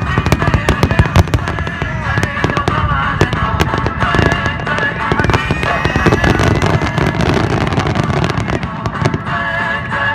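Fireworks display going off in a dense volley: rapid crackling and popping bursts over deep booms, with music playing underneath.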